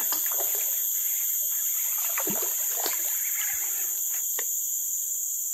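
A hooked yellow baung catfish splashing and sloshing at the water's surface in scattered short bursts. Under it runs a steady high-pitched drone of forest insects.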